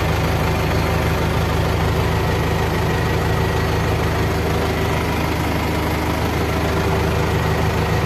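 Randon backhoe loader's diesel engine running steadily at an even speed, heard from inside the operator's cab.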